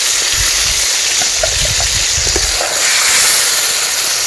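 Turkey berries frying in hot oil in a pan, a steady sizzling hiss, with a few low rumbles in the first couple of seconds.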